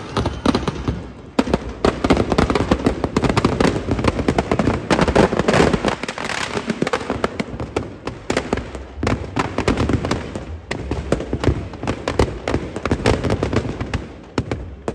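Firecrackers packed in a burning Dussehra effigy going off in a rapid, continuous crackle of bangs, thinning slightly in the second half.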